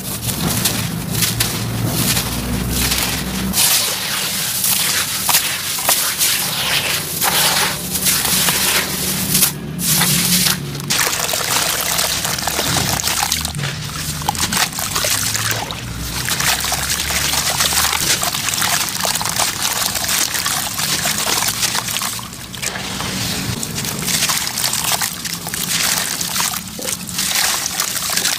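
Wet sand-cement chunks crumbled and squeezed by hand in a tub of water: many short gritty crunches mixed with sloshing, trickling and splashing water. In the first few seconds, dry sand-cement crumbles and pours through the fingers instead.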